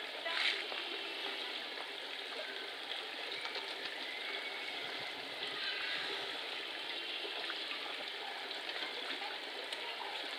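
Steady rush of running water from a small stream.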